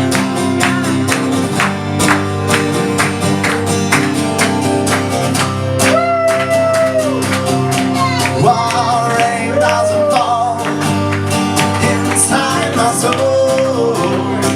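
Live pop band playing an instrumental passage with guitar over a steady drum beat, with a few held melody notes around the middle.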